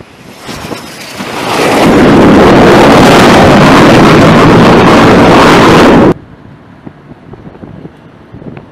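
T-45 Goshawk jet trainer's turbofan engine, rising from faint to a loud, steady jet noise as it comes in to land on the carrier deck, then cutting off suddenly about six seconds in. Faint wind noise on the microphone follows.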